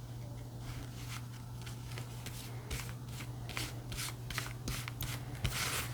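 A tarot deck being shuffled and handled: a run of short, crisp card clicks and flicks that starts about half a second in and grows busier toward the end, over a steady low hum.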